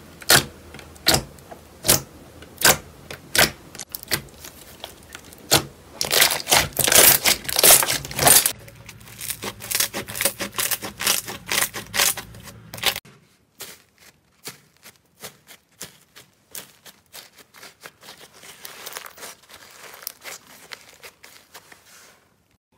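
Slime being squeezed and stretched by hand, giving sharp sticky pops and crackles: separate pops about every second at first, a dense run of crackling in the middle, then quieter, quicker clicking.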